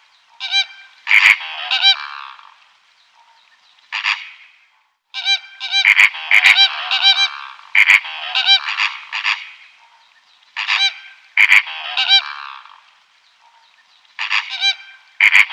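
Geese honking, several loud calls in quick succession, then short pauses, repeated over and over.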